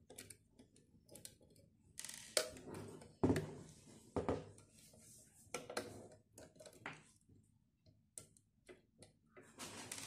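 Screwdriver turning side screws out of a sheet-metal electronics enclosure: scattered small clicks, scrapes and light knocks at irregular intervals as the screws are worked and the box is handled.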